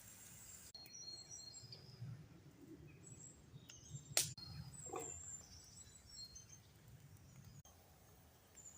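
Faint birdsong: short high chirps and trills, with one sharp click about four seconds in.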